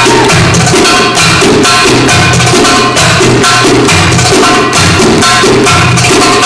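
Belly-dance music played loud over a stage PA, driven by a fast, steady percussion rhythm.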